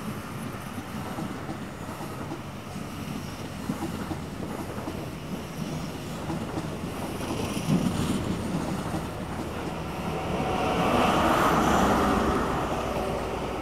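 High Speed Train's Mark 3 coaches rolling past as the train pulls out, a steady rumble of wheels on rail that swells louder for about two seconds near the end.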